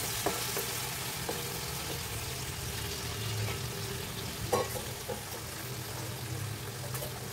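Half-boiled potatoes and onion masala sizzling steadily in hot oil in a kadai just after a splash of water has gone in, with a few light knocks.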